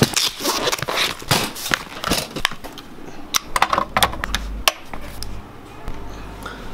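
Handling clatter: a string of sharp clicks and knocks as a black metal mesh laptop stand and a laptop are set in place and a plug is pushed into a power strip. It quietens after about four and a half seconds, leaving a low steady hum.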